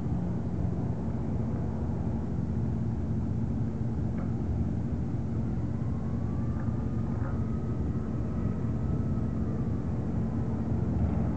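Small motor boat's engine running with a steady low hum as the boat moves slowly past on calm water.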